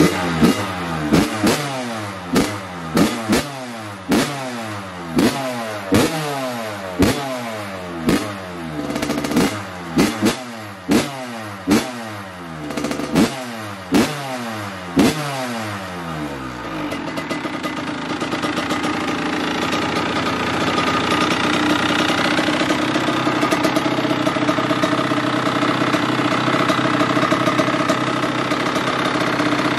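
Kawasaki KX100's two-stroke single-cylinder engine being warmed up: the throttle is blipped about once a second, each rev falling away quickly. About halfway through it settles into a steady idle.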